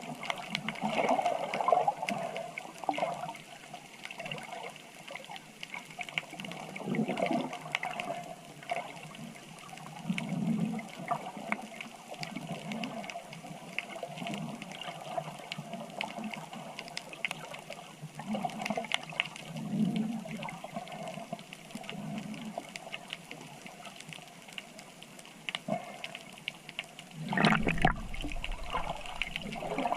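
Water sloshing and gurgling in irregular surges a few seconds apart, with a louder surge near the end.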